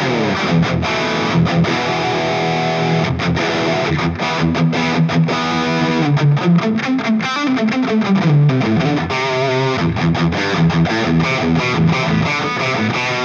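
Distorted electric guitar, a Fender Stratocaster played through a Hotone Ampero II Stage multi-effects unit on its untouched factory preset P01-1 "Ampero Strikes!", giving a heavy, driven tone. The riff has frequent short stops and a phrase of bent notes in the middle.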